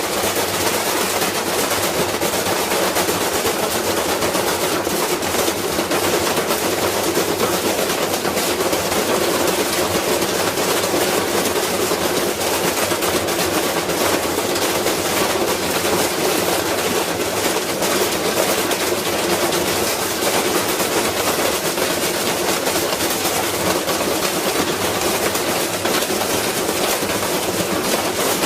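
Washing machine spinning with a brick inside, the brick battering the drum in a rapid, unbroken clatter of impacts.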